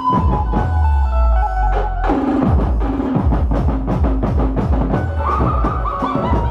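Music with a melody over bass and drums; about two seconds in, a busier drum pattern comes in.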